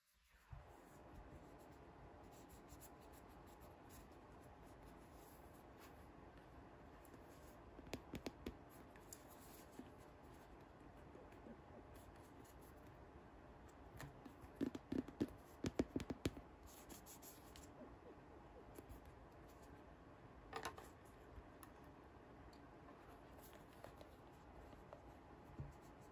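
Faint room hiss with scattered light clicks and scratches of hands handling small toy bunk bed pieces, and a busier run of clicks about halfway through.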